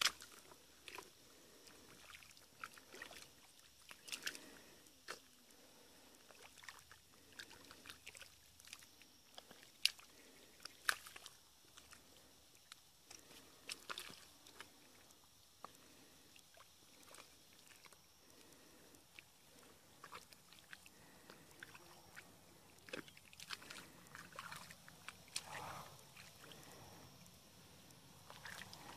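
Hands and feet squelching and sloshing in shallow mud and water, with irregular wet splats and small splashes, a couple of sharper ones about ten seconds in.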